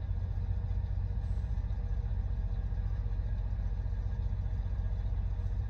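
Steady low rumble of a semi truck's engine heard from inside the cab, running evenly with no change.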